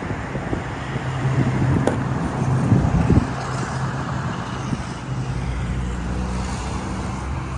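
A steady low engine hum with a noisy haze over it, and a sharp click and a few knocks about two to three seconds in.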